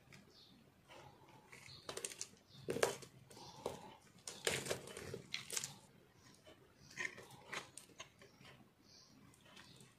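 Dry, crumbly soap crunching and crackling as hands crush and squeeze it apart, in irregular bursts. Near the end a knife blade scrapes into a re-molded soap bar, more quietly.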